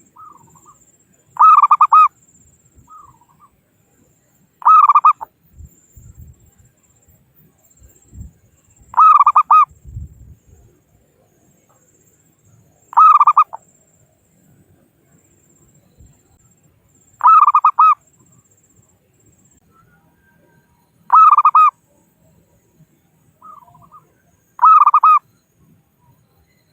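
Zebra dove (perkutut) calling: seven loud, short cooing calls about every four seconds, with a few softer notes between them.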